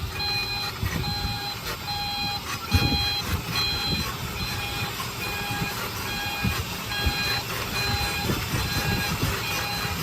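Heavy earthmoving machine's reversing alarm beeping at about one beep a second over a low diesel engine rumble, with scattered clunks and a heavier knock about three seconds in.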